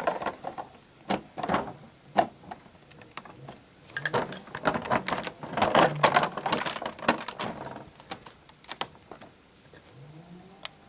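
Plastic Lego pieces clicking and clattering as they are fitted back onto a model, in irregular clicks that crowd together midway and thin out near the end.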